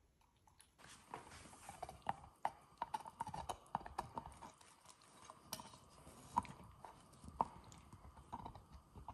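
German Shorthaired Pointer puppy gnawing a hard antler-shaped chew toy: irregular sharp clicks and scrapes of teeth on the toy, starting about a second in.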